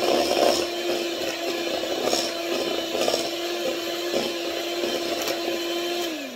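Hand-held electric mixer running steadily, its beaters churning muffin batter in a bowl. Near the end the motor's hum drops in pitch and stops as it is switched off.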